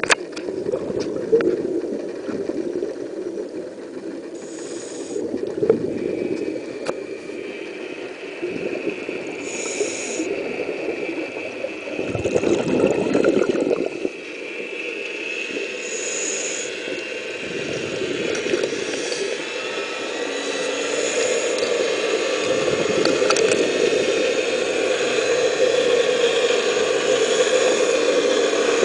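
Underwater sound of a venturi suction dredge running: a steady noisy rush and rattle as black iron sand is drawn through the suction hose, growing louder toward the end.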